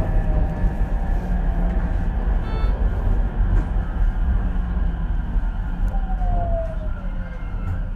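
Inside an Ichibata 7000-series electric railcar: steady running rumble with the traction motor whine gliding down in pitch as the train brakes. The level eases off toward the end as it slows for a station.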